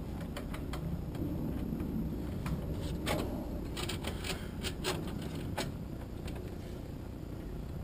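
Scattered light clicks and knocks of a braided steel oil hose and its AN fittings being handled and routed against an aluminium dry-sump can. A steady low rumble runs underneath.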